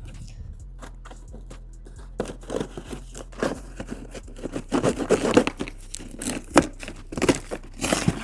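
A stapled shipping box being torn and pried open by hand: irregular tearing, crinkling and crackling, growing busier and louder from about two seconds in.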